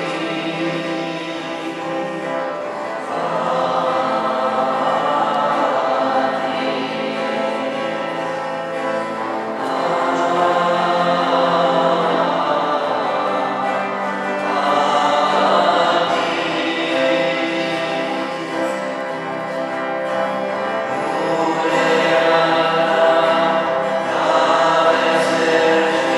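A church choir singing a slow hymn in sustained, full harmony, swelling and easing phrase by phrase.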